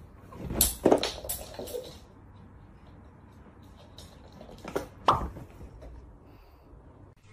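A few short knocks and thumps in a small room: a cluster of them from about half a second to two seconds in, and two more about five seconds in.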